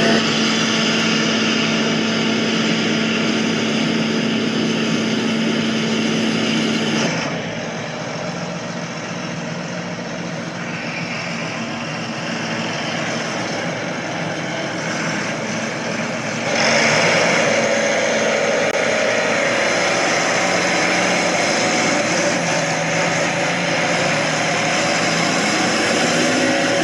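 Steady loud machine running, a pitched hum with noise over it. It changes character abruptly about 7 seconds and 16 seconds in, as the audio cuts between takes.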